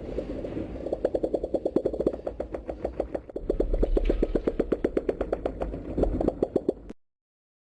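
MUTO monster sound effect from the Monsterverse films: a rapid clicking, rattling chatter of about nine clicks a second over a low rumble. It cuts off abruptly near the end.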